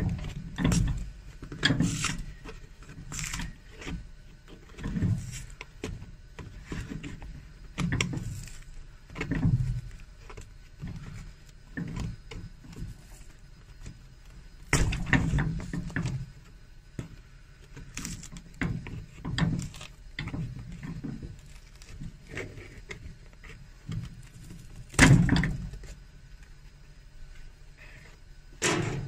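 Cobbler's pincers gripping and levering nails out of a leather shoe sole and heel seat on an iron last. Irregular clicks and dull knocks come every second or two, with a louder knock a little before the end.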